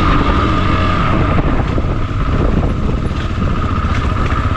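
Rieju Aventura 125's single-cylinder engine running under way on a dirt trail, its steady engine note easing slightly about two seconds in.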